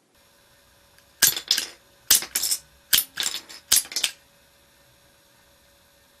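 Homemade rubber band hand gun being fired four times, each shot a sharp snap of the release followed by a brief rattling clatter, a little under a second apart.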